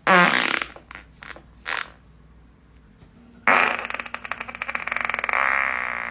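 Human farts: a loud short one at the start, a few brief puffs just after, then a long one with a rapid rattle starting about three and a half seconds in and trailing off past the end.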